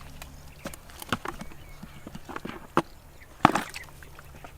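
Irregular knocks and thuds of digging into the earth by hand, a few sharp ones scattered through, the loudest about three and a half seconds in.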